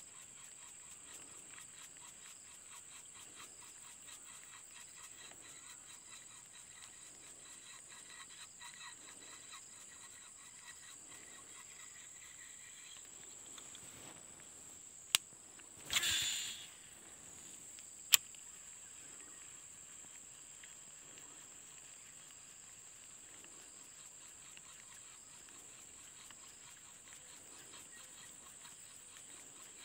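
Baitcasting reel being worked: faint reeling in the first half, then about halfway a sharp click, the short whoosh of a cast, and another sharp click two seconds later as the reel is re-engaged. A steady high insect drone runs underneath.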